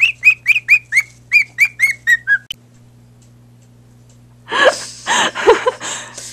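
A pet bird chirping in a fast, even series of short whistled notes, about six a second, which stops abruptly about two and a half seconds in. Near the end a person's voice comes in with short noisy bursts.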